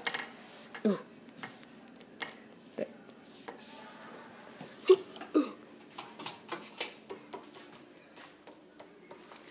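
Handling noise as plush toys and a handheld camera are carried: scattered rustles, soft knocks and bumps. A few short murmured vocal sounds, about a second, five seconds and five and a half seconds in.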